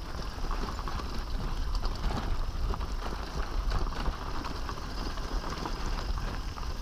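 Bicycle rolling over a rough dirt track: the tyres on gravel and the bike rattling give many small clicks over a steady rush, with wind rumbling on the microphone.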